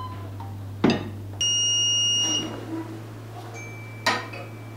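A heat press's timer or controller gives one high, steady electronic beep of just under a second, between two sharp mechanical clicks. A steady low electrical hum runs underneath.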